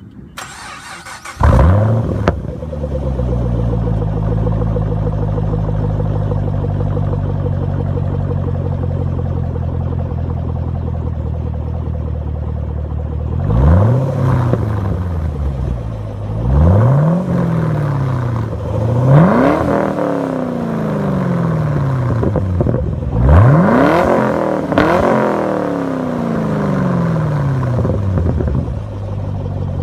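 Chevrolet Camaro engine cranked by the starter and firing up with a loud flare, then settling into a steady idle. Past the halfway point it is revved five times in quick blips, each falling back to idle.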